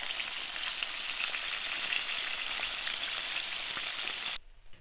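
Breaded vegetarian chicken patties deep-frying in hot vegetable oil: a steady sizzling hiss with tiny crackles. The sound cuts off suddenly near the end.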